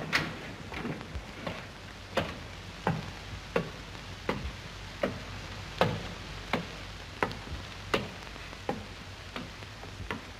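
Footsteps: a steady series of sharp hard-soled steps, about one and a half a second, over a low hum.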